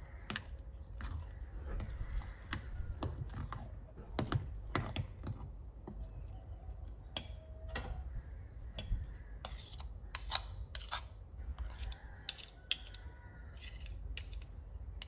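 Metal spoon stirring thick chickpea-flour batter in a glass bowl, with irregular sharp clicks of the spoon against the bowl's side. Near the end, two metal spoons scrape against each other.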